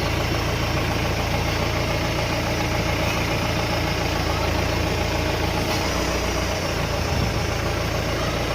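Mahindra Bolero's diesel engine idling steadily, with a newly fitted power steering belt running on its pulleys.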